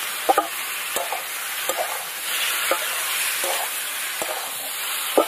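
Raw chicken pieces sizzling as they fry lightly with browned onions in a metal karai. A metal spatula stirs them, clinking against the pan a little over once a second.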